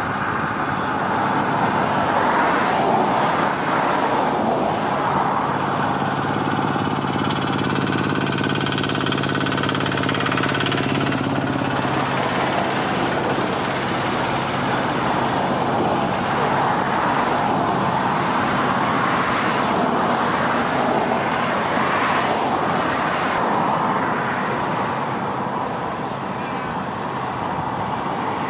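Heavy diesel machinery running steadily: a Caterpillar hydraulic excavator working with a dump truck. A deeper engine hum comes in for several seconds around the middle.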